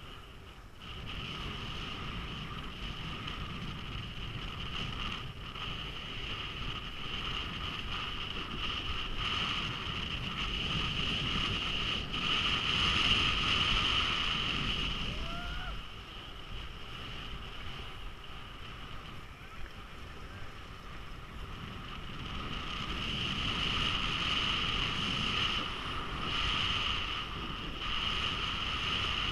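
Skis sliding and scraping over groomed snow with wind rushing over the microphone, a steady hiss and rumble that swells louder about halfway through and again near the end.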